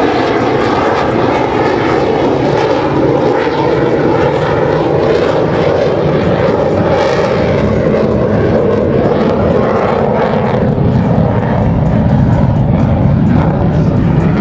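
Loud, continuous jet noise from a CF-18 Hornet's twin General Electric F404 turbofans in its display flight, the pitch sinking a little about ten seconds in.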